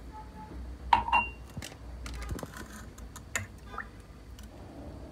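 Clinks of glass and metal as sugar, then cooking oil, is tipped from a glass into a steel saucepan of water. The loudest is a ringing clink about a second in, followed by scattered lighter clicks.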